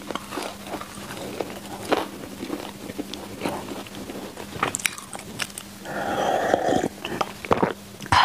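A person chewing chewy baked mochi bread up close to the microphone, with many small sticky mouth clicks. About six seconds in comes a louder breathy sound lasting about a second.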